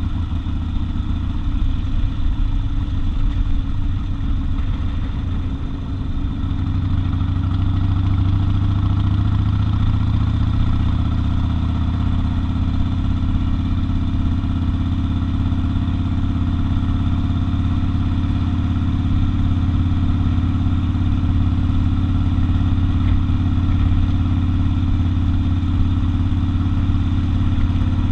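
Harley-Davidson XL 1200 Custom's air-cooled V-twin engine running while riding at a steady cruise. It dips briefly about six seconds in, then runs steady and a little louder.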